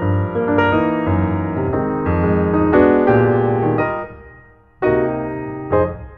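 Background piano music, a run of struck notes and chords. About two-thirds of the way in it fades almost to nothing, then picks up again.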